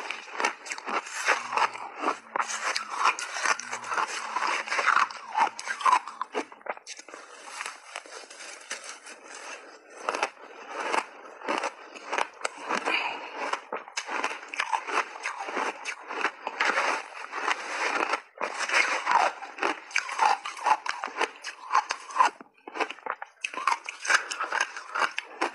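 Shaved ice being chewed close to a clip-on microphone: rapid, dense crunching and crackling, with a few brief pauses between mouthfuls.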